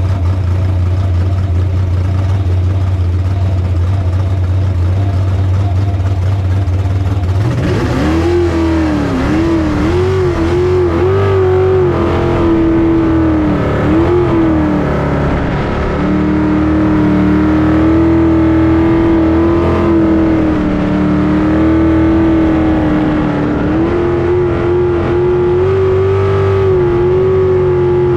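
Jet sprint boat's engine heard onboard, idling steadily, then about seven seconds in it revs up with a few throttle blips and runs hard at high revs, its pitch rising and falling with the throttle as the boat pulls away and runs the course.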